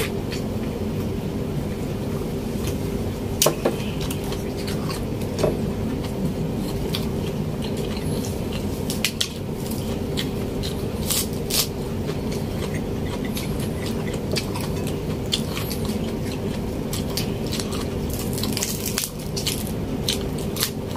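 Close-miked eating sounds: chewing and wet squelches as fingers handle braised pork adobo and lettuce, with scattered small clicks and snaps, over a steady low hum.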